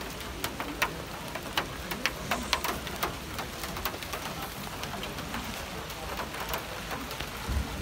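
Rain falling, with a steady hiss and many irregular sharp taps of single drops landing.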